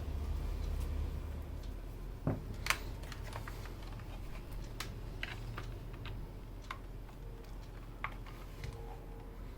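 Keys being pressed on a Skyloong SK61 mechanical keyboard with Gateron optical switches: scattered, irregular clicks, the loudest a pair about two and a half seconds in, over a low steady hum.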